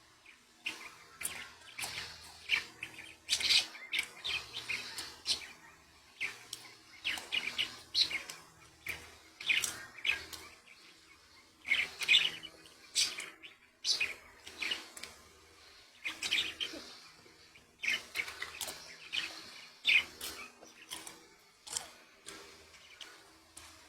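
Budgerigars chirping and chattering: many short, sharp chirps in quick, irregular runs, with brief pauses between the runs.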